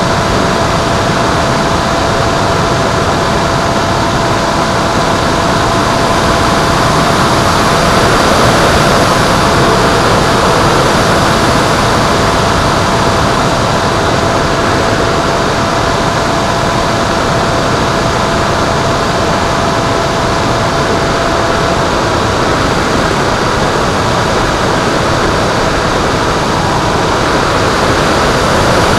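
Onboard audio from an FPV Penguin model airplane in flight: a steady rush of wind and propeller noise with a faint, even motor whine, one strand of which drops away about three quarters of the way through.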